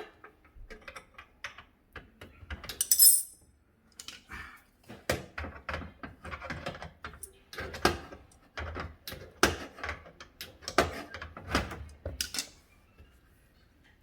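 Irregular knocks, clicks and metal clatter of a built-in dishwasher being worked loose and pulled out from under the counter, with a short hiss about three seconds in.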